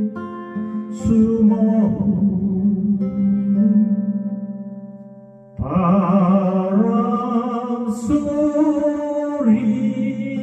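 Acoustic guitar and a singing voice: a long held final phrase over a ringing guitar chord fades out by about five seconds in, then strummed guitar chords start again for the closing bars.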